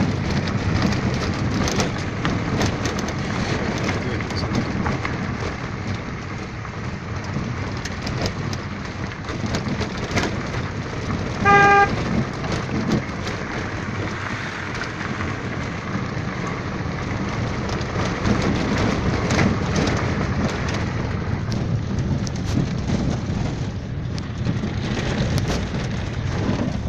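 A car driving, heard from inside the cabin: steady engine and tyre rumble with many small clicks and rattles. A little before halfway there is one short vehicle-horn toot, the loudest sound.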